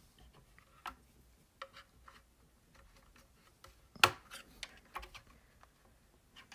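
Scattered sharp clicks and small snaps of a thin metal pry clip working plastic trim covers loose from a Klipsch R-25C speaker's front baffle, the loudest snap about four seconds in.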